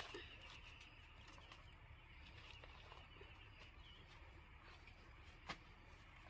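Quiet field ambience: a faint insect trill that fades out about four seconds in, soft steps through low leafy plants, and one sharper tap about five and a half seconds in.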